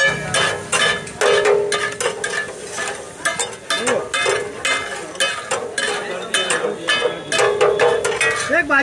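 Metal spatulas scraping and clacking on large flat griddles (tawas) as pulao rice is stirred and tossed, in quick, irregular strokes.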